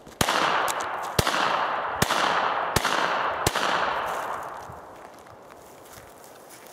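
Five .22LR pistol shots from a North American Arms five-shot mini revolver, fired one by one under a second apart. Each crack is followed by a long echo that fades out about a second after the last shot.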